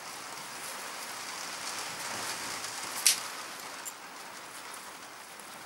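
Bolts being pushed into the open ends of rubber fuel hoses to plug them, with one sharp click about three seconds in and a smaller tick about a second later, over a steady hiss.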